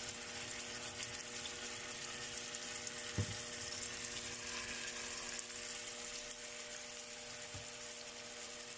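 Chicken cooking in a pan on the stove: a steady hiss with a steady hum under it, a soft knock about three seconds in and a fainter one near the end.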